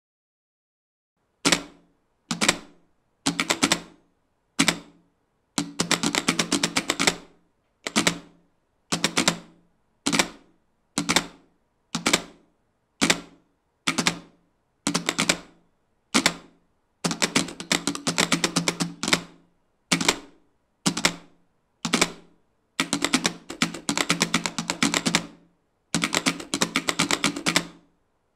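A row of Morse telegraph keys clicking in rapid bursts of clatter, about one a second, some short and some running on for one to two seconds, starting about a second and a half in.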